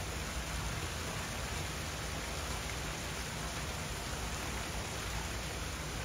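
Steady, even background hiss with no distinct calls or events.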